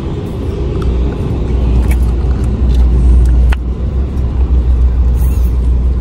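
Steady low rumble inside a car cabin, with a few light clicks.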